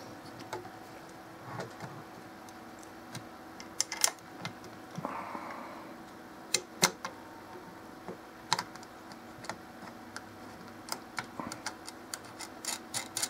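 Scattered sharp clicks and taps of a camcorder and its plastic mount being handled and fitted onto a flat steel plate holder, with a brief scrape about five seconds in and the clicks coming faster near the end. A faint steady hum runs underneath.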